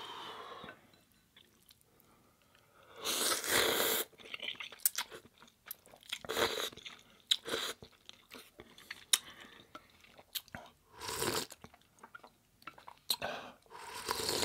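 Close-miked eating of instant ramen noodles in broth: wet chewing and mouth clicks broken by several long slurps. The loudest slurp comes about three seconds in, and another comes near the end as broth is sipped from the bowl.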